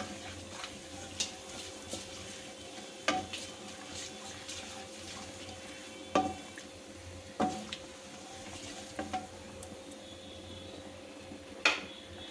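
Bay leaves and dried red chillies frying with a gentle sizzle in hot mustard oil in a kadai, with a spatula knocking against the pan now and then as they are stirred; the sharpest knock comes near the end.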